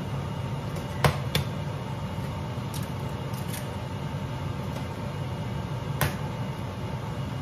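Eggs being tapped against the rim of a glass bowl and cracked into it: a few sharp taps, two close together about a second in and another about six seconds in, over a steady low hum.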